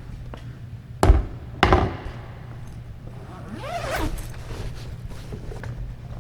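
Squash ball smacked twice in quick succession, about half a second apart, as racket and front wall send it back and forth in a solo drill. A few seconds later, a short squeak of court shoes on the floor.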